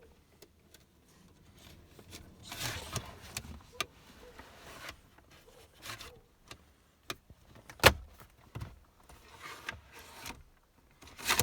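Plastic cupholder frame being pushed and worked into an Audi A6/A7 C7 rear armrest: rubbing and scraping of plastic on plastic, with several sharp clicks and knocks, the loudest about eight seconds in and another near the end as it seats.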